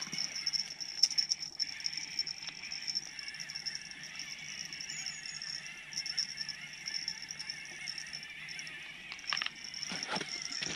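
Steady, high-pitched insect chirring, pulsing without a break. Near the end come a few clicks and rustles.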